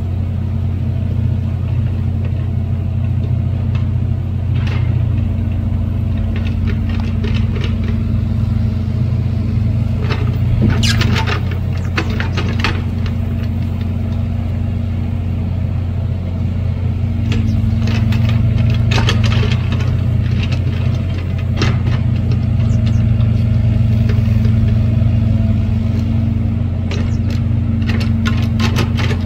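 A vehicle engine idling with a steady low hum. Bursts of short clicks and rattles come three times, at about ten seconds, about eighteen seconds and near the end.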